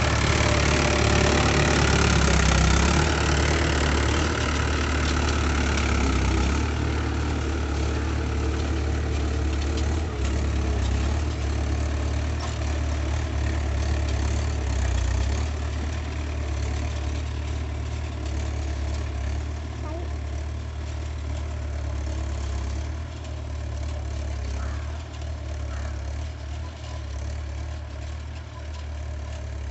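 Tractor engine running steadily at low revs. It is louder and fuller for the first six seconds or so, then grows gradually quieter.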